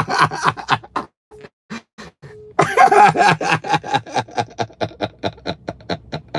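A man laughing hard. The first loud burst of laughter breaks off about a second in. After a short pause, a second loud burst comes about two and a half seconds in and trails off into quick, weakening pulses of laughter, about four or five a second.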